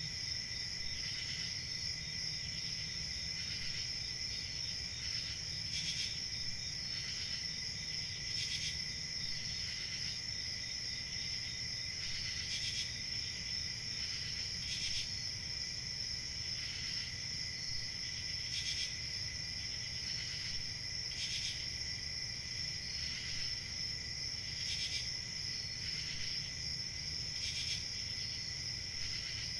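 Crickets chirping in a steady chorus: a continuous high trill with other chirps pulsing over it every second or two.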